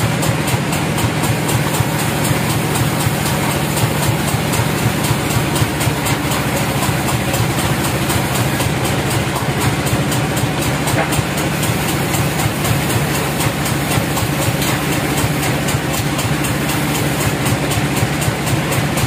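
Bandsaw sawmill machinery running steadily with no load while no cut is being made, a constant engine-like hum with a fast, even beat.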